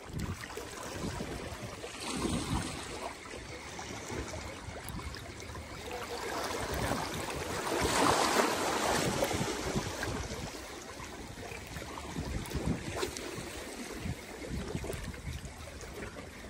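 Sea water lapping and sloshing with wind on the microphone, and a few small knocks. About eight seconds in, a louder rushing swell rises and fades over a few seconds.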